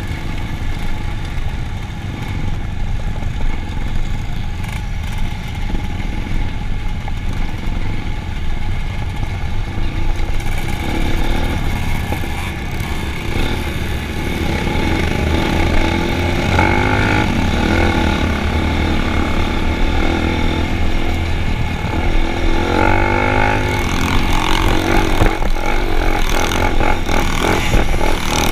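Vehicle engines running steadily, with a couple of swells in engine speed past the middle.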